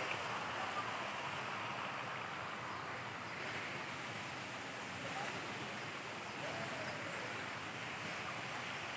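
Steady rush of running water, even and unbroken, with a faint steady high-pitched hiss above it.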